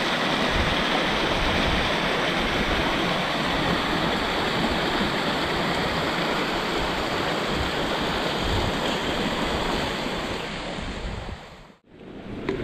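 Shallow stream trickling over rocks: a steady rush of running water. It fades out almost to silence for a moment near the end.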